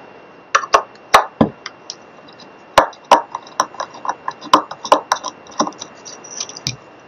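A small screwdriver pushing and prying the old metal tuner bushings out of a Squier Mini guitar headstock: an irregular run of sharp clicks and light metallic clinks.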